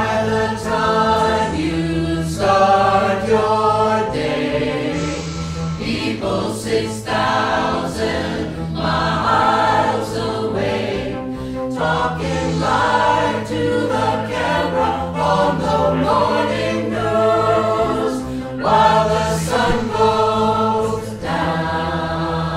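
A nine-voice mixed vocal group singing in close harmony, chords changing every second or so over sustained low bass notes, with short sharp clicks running through it.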